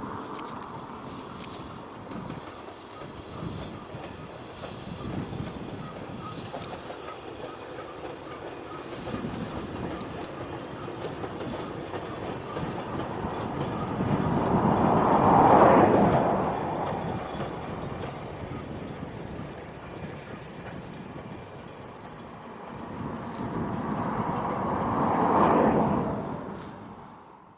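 A steam train running past on the rails, a steady rumble that swells loudest about halfway through and again near the end before stopping abruptly.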